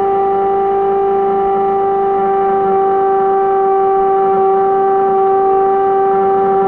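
Steam locomotive whistle blowing one long, steady note.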